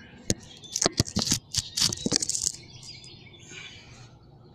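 Head bolt being scrubbed and handled: a quick run of short, sharp metallic scrapes and clicks for about two seconds, then fainter scratching.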